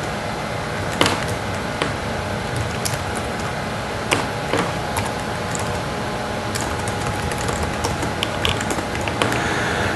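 Computer keyboard being typed on: scattered key clicks, more frequent near the end, over a steady background hiss.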